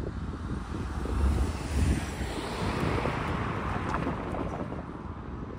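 A car drives past, its tyre and engine noise swelling and then fading. Low wind rumble on the microphone is loudest in the first two seconds.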